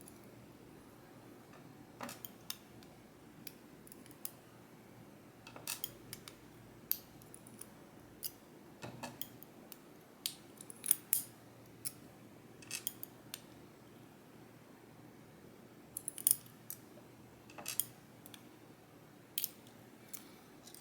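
Small metal lock pins clicking and tapping as the gin-bottle-shaped spool drivers are taken out of a Ruko Garant twin-combination lock cylinder: sharp, irregular clicks, some in quick little clusters.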